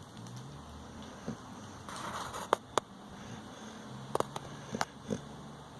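Snoring: slow, low rasping breaths, one near the start and a longer one about four seconds in, with a soft breath between and a few sharp clicks.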